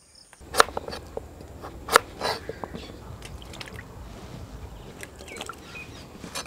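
Pumpkin cubes dropped one after another into a steel pan of water, each landing with a small plop or splash. The louder splashes come in the first two or three seconds.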